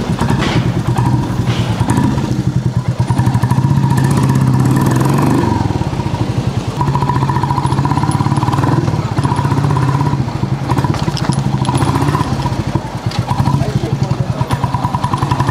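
Royal Enfield Hunter 350's single-cylinder engine, breathing through an aftermarket Indori three-mesh silencer, running as the bike is ridden off along the street. It has a fast, even exhaust beat that gives the old Bullet sound.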